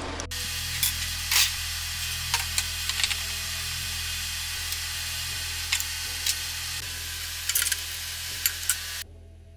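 Steady hiss with scattered sharp clicks and light knocks as wooden pieces are handled and fitted together, over a low steady hum.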